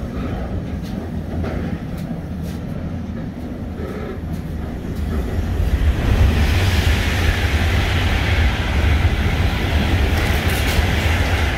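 Container freight train wagons rolling past close by: a steady rumble of wheels on rail that grows louder and hissier about halfway through.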